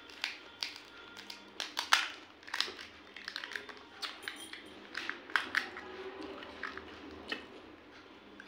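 Crisp pani puri shells crackling and cracking under the fingers as they are broken open and filled, in irregular sharp clicks.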